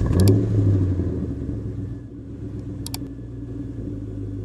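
An engine idling with a low, steady-pitched rumble, loudest at first and settling lower after about two seconds. Two short clicks sound, one just after the start and one about three seconds in.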